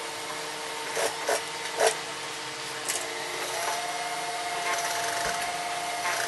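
Sewing machine stitching a pocket onto denim pants. A few sharp clicks come in the first three seconds, then a steady motor whine from about halfway on.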